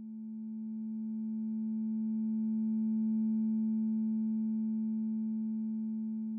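Synthesized Sonic Pi drone: a low, steady chord of pure, bell-like tones that swells for about three seconds and then slowly fades. It is the data sonification of the red wines' chloride values, the shape of their distribution mapped onto the tone's spectrum.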